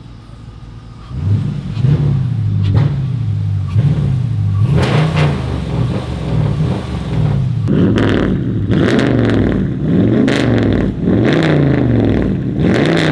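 2022 Dodge Durango R/T's 5.7 Hemi V8, fitted with an aFe cold air intake, revved over and over, rising and falling about once a second. The revs start about a second in and get louder and harder about two-thirds of the way through.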